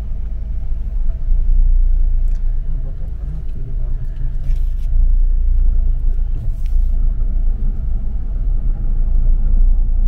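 Steady low rumble of a Chevrolet car moving slowly, heard from inside the cabin: engine and tyre noise, with a few faint light clicks.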